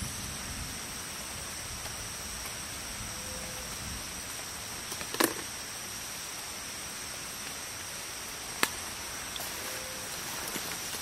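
Rainforest background: a steady hiss with insects holding two constant high-pitched tones, broken by one sharp knock about five seconds in and a lighter click a few seconds later.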